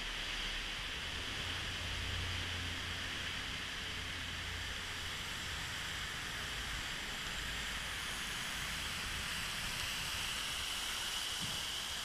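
Steady rush of churning sea water around a small tour boat at the mouth of a sea cave. A low rumble sits beneath it, strongest in the first few seconds.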